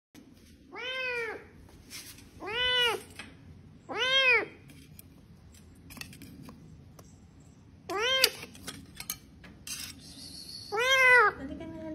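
A cat trapped inside a floor drain meowing: five separate meows, each rising and then falling in pitch, a second or more apart.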